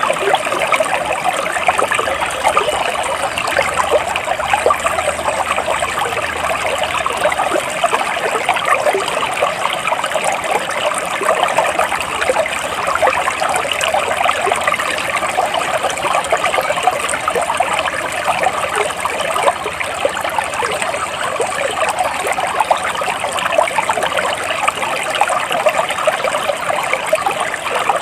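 Flowing water trickling and bubbling steadily.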